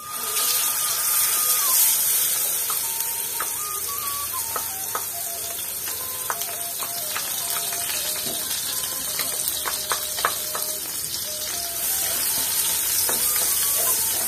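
A wet paste of ground melon seeds, onion, ginger, garlic and green chili hits hot oil in a frying pan and sizzles steadily, starting suddenly. A spatula scrapes and taps against the pan now and then as the paste is spread and stirred.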